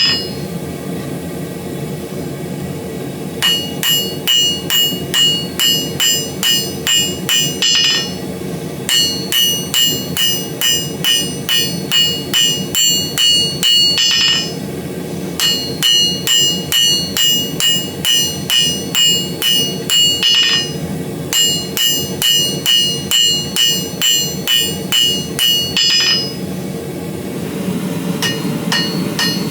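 Hand hammer striking steel on an anvil while forging a BBQ fork, each blow ringing, in runs of several seconds at about three blows a second with short pauses between. A steady low rushing noise runs underneath.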